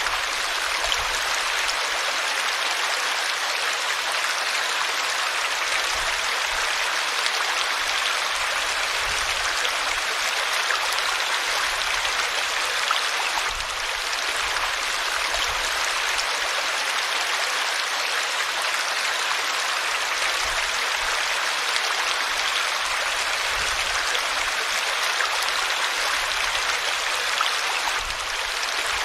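River water flowing and rushing steadily over rocks, an even, unbroken rush of running water.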